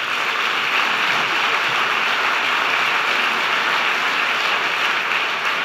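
Large audience applauding: dense, even clapping that builds up in the first second and then holds steady.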